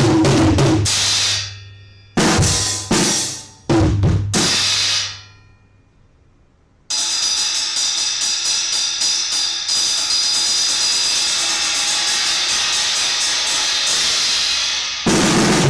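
Drum kit with a Paiste PSTX Swiss cymbal being played. It opens with a short burst of beats, then a few single crashes each left to ring and die away, and a pause of about two seconds. Then comes a long run of fast, even strokes on the cymbal, and the full kit comes back in near the end.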